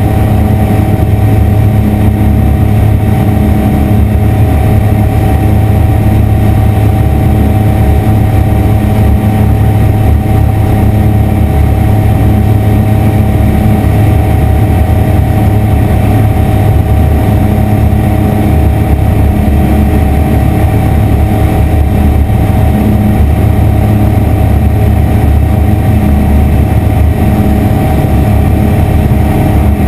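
Aeroprakt ultralight aircraft's engine and propeller running steadily at cruise power, a loud even drone heard from inside the cockpit.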